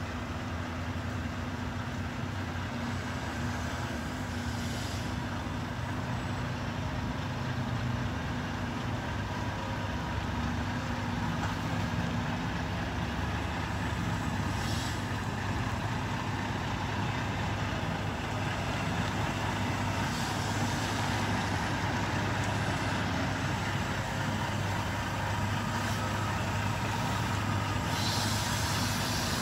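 Semi-truck's diesel engine running steadily as the tractor-trailer creeps through a tight manoeuvre, slowly growing louder. A few short air hisses from the truck's air brakes come every several seconds.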